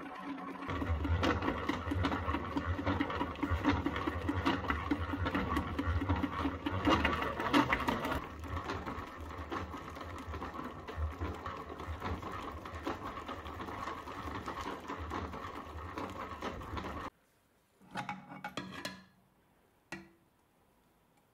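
Restored Victorian butter churn running, its geared dasher mechanism giving a rapid, steady mechanical rattle over a low hum as it beats the cream; the sound cuts off abruptly, followed by a couple of short, soft sounds.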